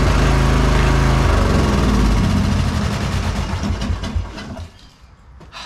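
Briggs & Stratton riding-mower engine running, changing pitch about two seconds in, then winding down and stopping about four and a half seconds in. A single sharp knock follows near the end.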